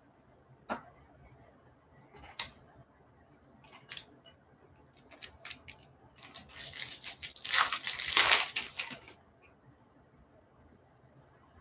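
A few light clicks, then about six seconds in a foil trading-card pack wrapper crinkling and tearing as it is ripped open by hand, for about three seconds.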